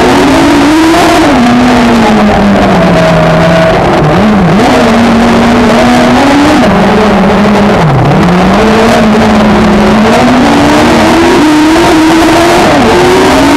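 Citroën Saxo autocross prototype's engine running hard under race load, heard on board, its pitch wavering and climbing with two brief sharp dips about four and eight seconds in.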